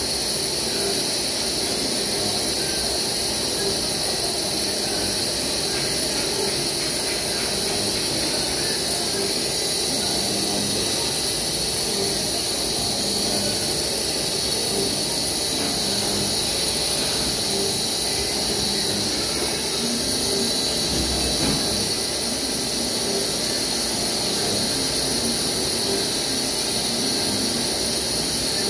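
CNC mill cutting a worm screw from a polyethylene bar turned on a rotary axis: the spindle and end mill run steadily under a jet of flood coolant. A continuous high-pitched whine and hiss.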